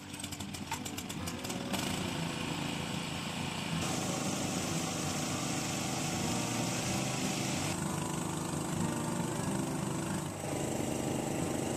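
Small petrol-engined portable water pump: a rapid ticking in the first second or two, then the engine running steadily. For a few seconds in the middle, water rushes loudly from the pump's outlet.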